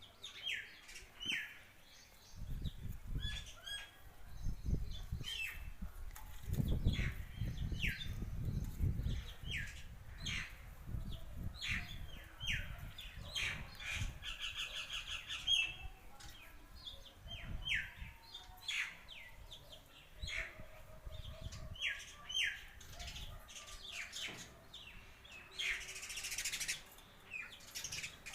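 Sparrows chirping repeatedly: many short, downward-sliding chirps, with a quick trill about halfway through. A low rumble runs under the chirps for several seconds in the first third, and a brief rushing noise comes near the end.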